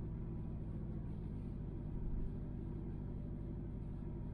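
Steady low drone heard inside the cabin of a 1999 Subaru Forester S/tb, with a few steady low tones over a rumble, reading about 70 dB on a phone decibel meter.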